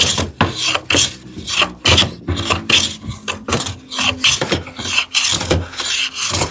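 Hand plane taking repeated strokes along a wooden board, about two swishing passes a second, each a quick shaving cut.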